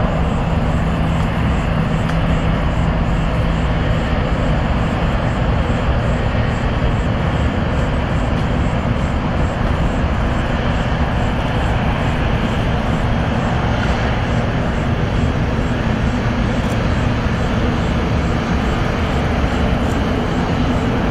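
Twin GE90 turbofan engines of a Qatar Airways Boeing 777-200LR at takeoff thrust during the takeoff roll, a loud, steady jet noise.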